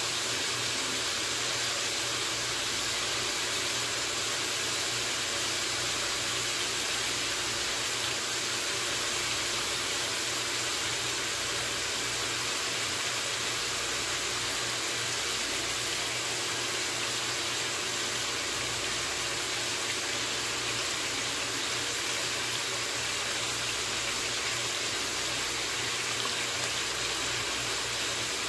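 Chicken pieces and sliced onions sizzling in oil in a wok: a steady, even hiss with a faint low hum underneath.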